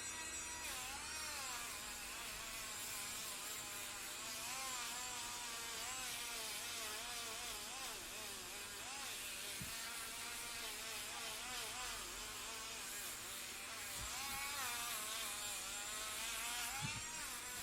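Electric nail drill whining, its pitch wavering up and down as the motor speed shifts, with a few faint clicks.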